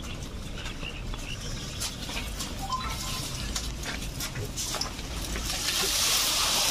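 Calamansi fruits tumbling out of a red mesh sack onto a heap on a wooden sorting table, with scattered small clicks and knocks. A rushing patter rises near the end as more fruit pours out.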